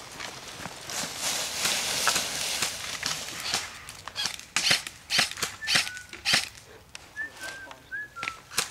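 Airsoft guns firing single shots: about five sharp pops, most in a cluster a little under a second apart past the middle, one more near the end. Before them come a few seconds of rustling through dry brush and leaves. Short high falling chirps sound between the shots.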